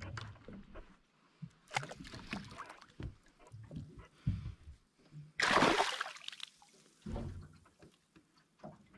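A fish held in lip grips thrashing and splashing at the water surface beside a boat, with one big splash about halfway through.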